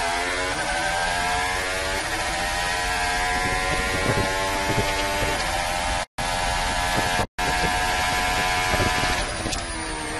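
Williams FW42 Formula 1 car's Mercedes 1.6-litre turbocharged V6 hybrid engine at full throttle, recorded from the onboard camera, its pitch climbing and resetting as it shifts up through the gears. The sound cuts out twice for a split second around the middle, and the engine note drops away near the end as the car slows for a corner.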